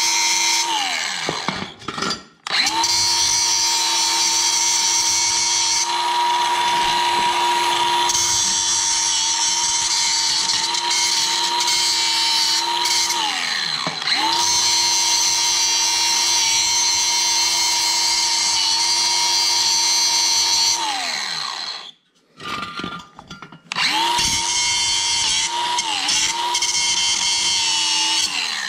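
Angle grinder running at full speed, its disc grinding the welded joint of a steel exhaust pipe. The motor winds down and stops about a second in, then starts again. It runs steadily until about two-thirds of the way through, winds down again, and after a pause of a couple of seconds starts up once more.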